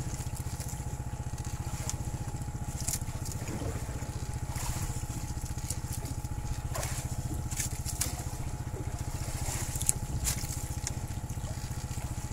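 A small boat engine running steadily with a fast, even chug. Scattered clicks and knocks of handling on deck sound over it, the sharpest about ten seconds in.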